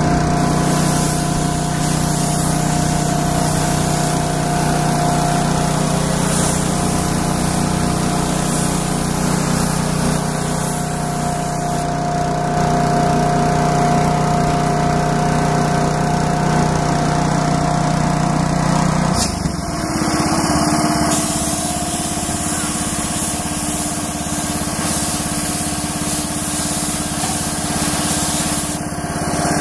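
Gravity-feed spray gun hissing with compressed air in long passes while spraying a coating, over a steady machine hum whose pitch shifts about two-thirds of the way in.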